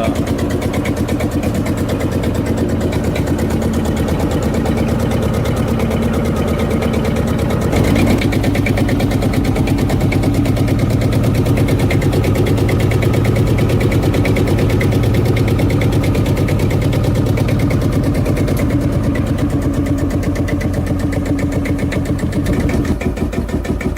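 Single-cylinder tractor engine running with a steady, even beat of firing pulses. About eight seconds in its low note becomes fuller and louder.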